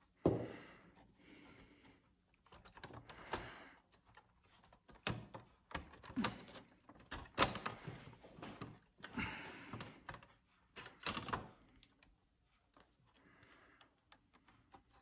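Irregular clicks, taps and short rustles of small plastic wire connectors being unplugged and a circuit board being lifted out of an opened projector.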